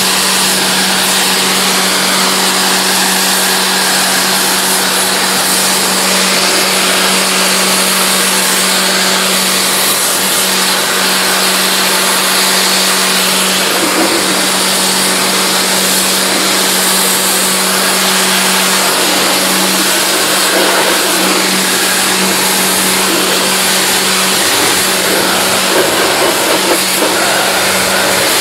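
A motor-driven machine running steadily, with a constant hum under a loud hiss.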